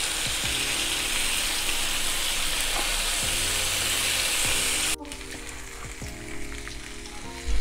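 Chicken breasts sizzling on a hot grill plate, a steady loud hiss. About five seconds in, the sizzle cuts off abruptly, leaving faint soft background music.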